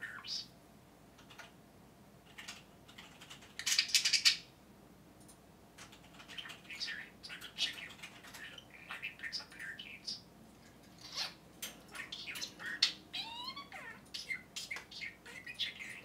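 Budgerigar chattering in quick, high-pitched mimicked speech mixed with chirps, saying phrases like "baby birds", "hey Siri… chicken" and "what a cute bird, baby bird, cute cute cute baby chicken". A loud harsh squawk comes about four seconds in.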